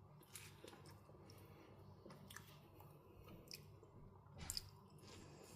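Faint wet chewing and mouth smacks of someone eating a piece of Osteen mango, with a louder smack about four and a half seconds in.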